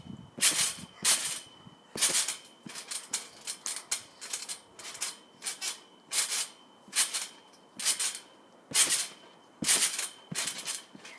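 Garden trampoline being bounced on: a short noisy burst from the springs and mat with each bounce, roughly one a second and unevenly spaced.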